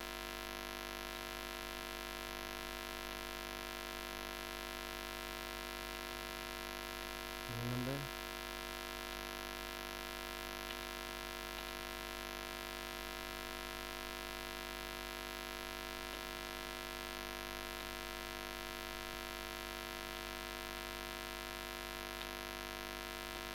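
Steady electrical hum and hiss from the recording microphone, made of several steady tones. A brief vocal sound from the narrator comes about eight seconds in, and a few faint clicks come later.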